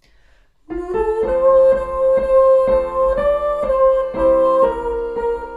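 A short melody is sung by a woman's voice on a few held, stepping notes over piano chords struck about twice a second. The music starts about a second in.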